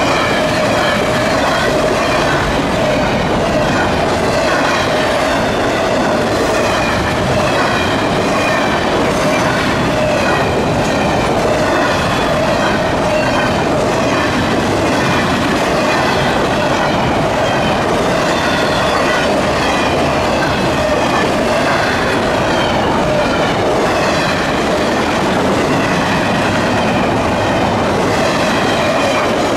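Double-stack container cars of a CSX freight train rolling steadily past, steel wheels clicking on the rails. A steady ringing tone sits under higher wavering wheel squeals.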